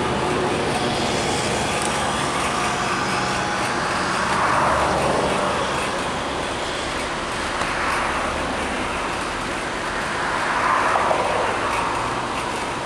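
Steady din of sugar-factory machinery, with a hiss that swells three times, about four and a half, eight and eleven seconds in.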